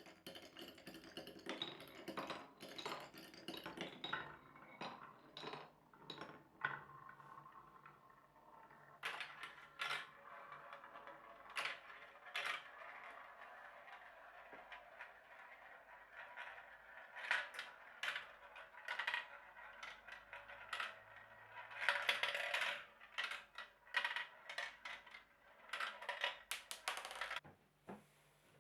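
Marbles rolling down a marble run: a steady rolling rumble broken by frequent sharp clacks and clicks as they knock against the track and each other, with a dense burst of clatter about two-thirds of the way through.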